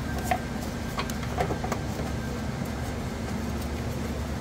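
Steady low hum in the background, with a few light clicks and taps in the first two seconds as a screw is started by hand into a riding mower's deck belt cover.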